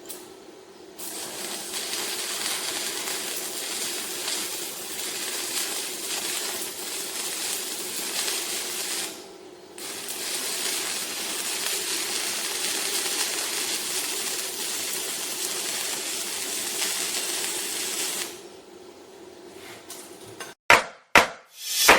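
Stick-welding arc burning a 1/8" 6013 electrode on a small inverter welder: a steady crackling hiss in two runs, broken off briefly about nine seconds in and struck again. Music starts near the end.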